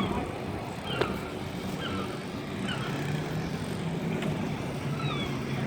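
Steady low hum of a running vehicle engine, with short high chirps scattered over it and a sharp click about a second in.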